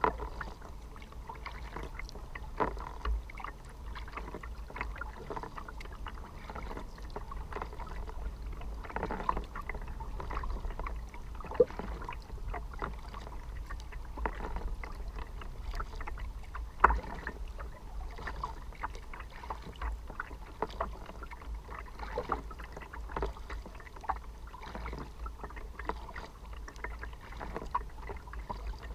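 Kayak being paddled: small irregular splashes and drips of water along the hull and paddle, with a few sharper knocks.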